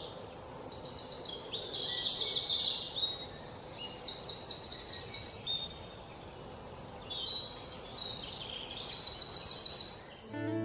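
Several birds chirping in quick, high-pitched trills that overlap one another, over a faint steady hiss; the calls thin out briefly midway and stop abruptly near the end.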